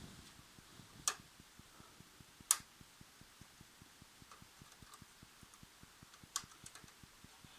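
Faint handling noise from an opened HP M104 laser printer: three sharp plastic clicks, about a second in, near the middle and near the end, over a steady, fast, faint ticking of about four to five a second.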